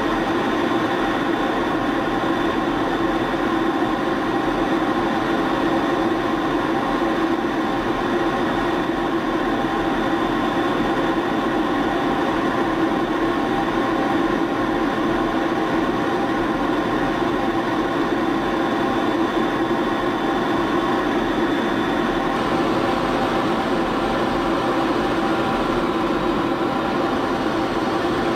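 F-16 fighter jet cockpit noise in flight: a steady drone of engine and rushing air with several steady tones. About three-quarters of the way through, the hiss changes slightly.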